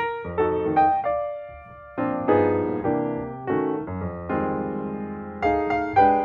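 Background piano music: gentle chords and single notes that ring and fade, with a short pause about one and a half seconds in.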